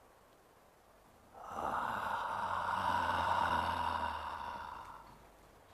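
A lion's long, slow breath, one continuous breath of about three and a half seconds that starts about a second and a half in and fades away: Aslan breathing on a stone statue to bring it back to life.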